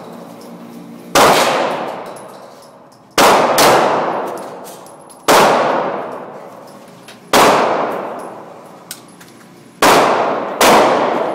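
Seven pistol shots at uneven intervals, two of them in quick pairs, each followed by a long echoing decay in an enclosed indoor shooting range.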